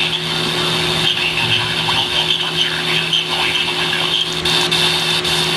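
Steady radio static hiss with a low hum running underneath, the sound of a noisy weather radio receiver with no clear broadcast coming through.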